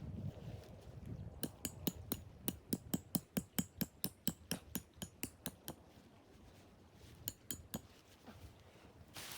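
A quick run of sharp knocks or taps, about five a second for some four seconds, then three more near the end.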